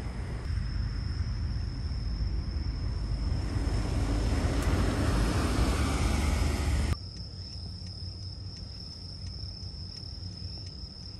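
Low noisy rumble of the passenger ferry SEA PACEO's engines and propeller wash as it passes close by, swelling over the first seven seconds and then cutting off suddenly to a much quieter outdoor hush. A thin steady high-pitched tone runs throughout.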